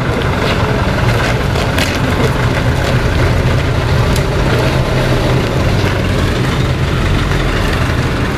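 Engine of a period military truck running steadily at low revs as the truck drives slowly across cobbles. A couple of short sharp clicks sound over it, about two and four seconds in.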